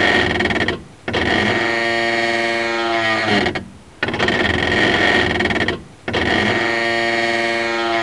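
Creaking groan of the kind heard when braking, like a dry door hinge, played twice: each time a rough creak runs into a drawn-out pitched moan that sags at the end. A groan like this when braking is typically from worn or loose suspension parts, such as control arm bushings, ball joints or sway bar links, rather than from the brakes.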